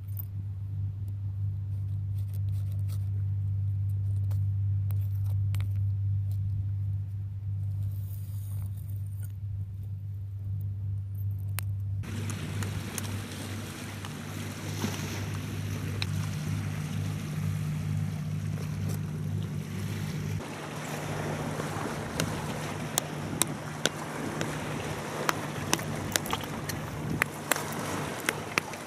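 A steady low motor-like hum for about the first twelve seconds, then waves washing on a rocky shore with wind-like noise, and a run of sharp clicks near the end.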